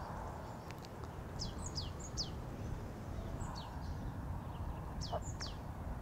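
Small songbirds giving quick, high, downward-sliding chirps in a few short clusters, over a steady low background rumble.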